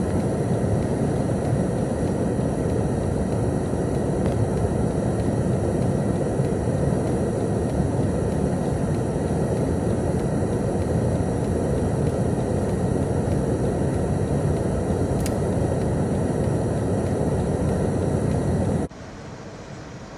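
Steady road and wind noise inside a car driving on a snow-covered highway, with one faint tick about fifteen seconds in. The noise cuts off abruptly near the end.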